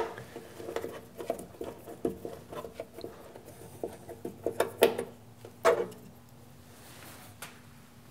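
Light clicks, taps and scrapes of a screwdriver working on a contactor and its DIN-rail mounting inside an electrical enclosure, as the contactor is released from the rail. Two sharper knocks come about five and six seconds in.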